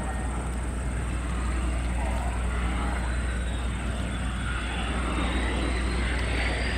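Boeing F/A-18F Super Hornet jet fighter on landing approach with gear down, its twin General Electric F414 turbofans running with a steady jet noise. A faint high whine dips and then rises near the end.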